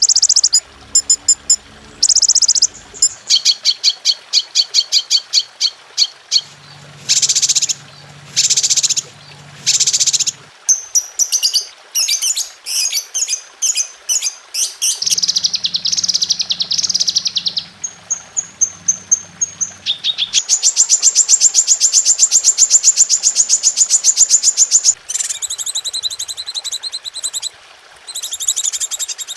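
Songbird calls in quick succession: series of high-pitched chirps and rapid trills that change pattern every few seconds, with one long, very fast trill a little past the middle. It is a recorded masteran, a tutor song played to train caged songbirds.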